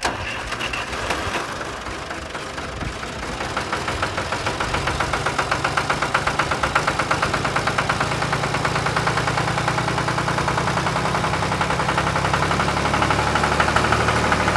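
Tractor-type engine running steadily with a regular beat of about four pulses a second, growing a little louder over the first few seconds.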